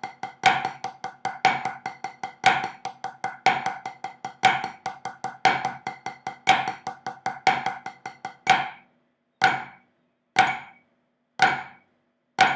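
Wooden drumsticks playing flammed five-stroke paradiddles on a rubber practice pad over a metronome clicking once a second at 60 bpm. About eight and a half seconds in the sticks stop, and the metronome clicks on alone.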